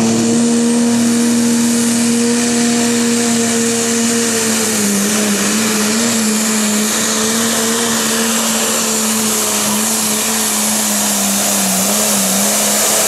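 A John Deere pro stock pulling tractor's turbocharged diesel engine held at full throttle while it drags the weight-transfer sled: a loud, steady engine note with a high whine above it. The pitch sags slightly about halfway through and wavers near the end as the load builds.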